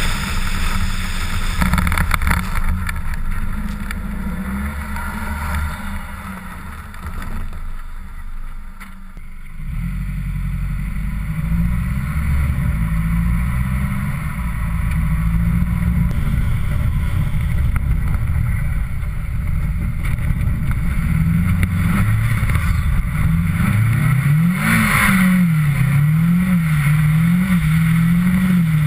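Mitsubishi Lancer Ralliart's four-cylinder engine under way at speed, heard from a camera mounted outside the car. It eases off briefly about a third of the way in, then picks up again. Near the end the revs rise and fall several times in quick succession.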